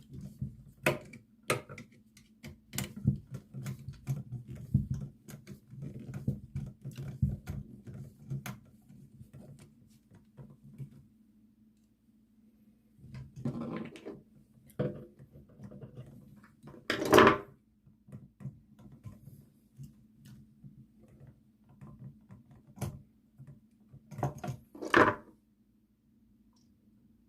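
Small clicks, taps and handling noises of hands working a toggle switch and its wiring, trying to disconnect a cable from the switch's terminal. A few louder short scrapes break quieter stretches, the loudest about two-thirds of the way through and another near the end, over a faint steady hum.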